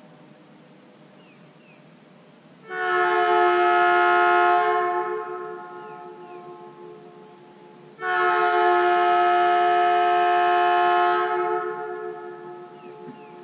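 Leslie locomotive air horn blown in two long blasts a few seconds apart, each a steady multi-note chord that fades out over a couple of seconds after the air is cut.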